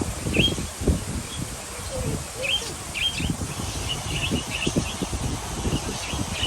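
Parakeets chirping: short, high chirps come every second or so, in a quick cluster around the middle, over a steady low rumble.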